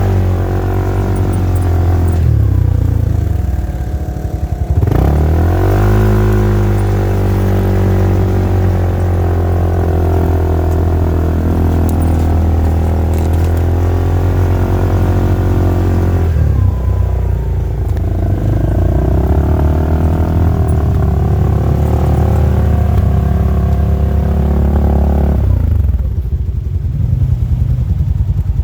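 Polaris RZR side-by-side's engine running under changing throttle: the revs fall about two to four seconds in, pick up again about five seconds in, shift again past the middle, and drop back near the end.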